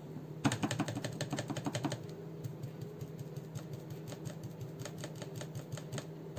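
Stencil brush dabbing paint through a plastic stencil onto glass: a quick run of light taps for about a second and a half, then slower, scattered taps.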